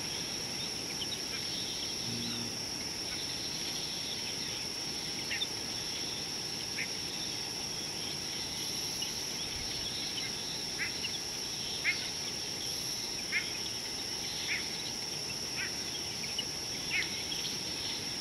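Steady, high-pitched drone of insects, with a bird repeating short, sharp calls about once every second or so from about a third of the way in.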